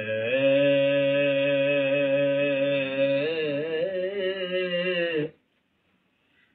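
A man's voice holding one long sung note of a Punjabi mahiya folk song, wavering in pitch partway through, then breaking off after about five seconds.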